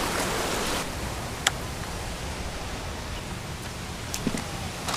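Ocean surf washing against rocks for about the first second, then a quieter stretch of rustling as bait is handled in a plastic cooler, with a sharp click about a second and a half in and a few light knocks near the end.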